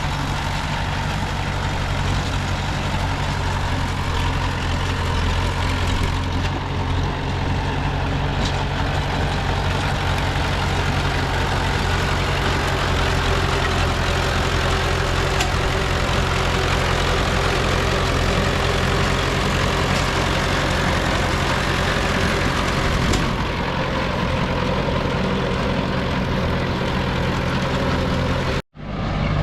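Diesel engine of heavy earthmoving equipment running steadily with a low, constant hum. The sound cuts out for a split second near the end, then comes back.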